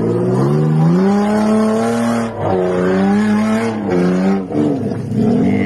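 A 4x4 SUV's engine revving hard under load on a steep dirt hill climb. The pitch rises over the first two seconds, dips, then climbs again before easing off about four and a half seconds in.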